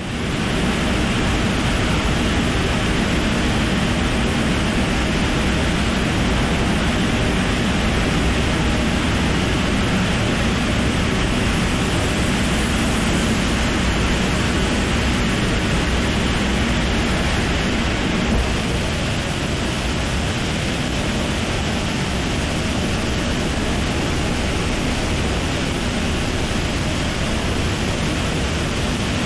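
Hybrid turbojet-ramjet engine running on a test stand, a loud, steady rushing noise with no clear whine, dropping slightly in level about eighteen seconds in.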